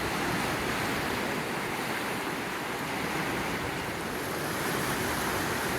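Steady rushing of a flooded, fast-moving mountain river running high.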